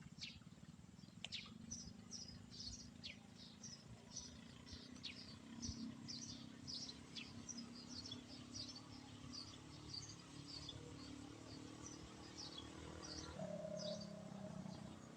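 Faint chirping of small birds, short high notes repeated several times a second, over a low steady rumble.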